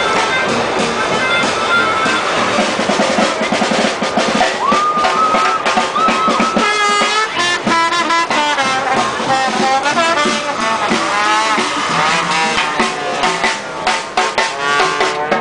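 Live swing band playing, brass horns carrying the melody over drums. A horn slides up into a long held note about five seconds in, and the drum hits grow busier in the second half.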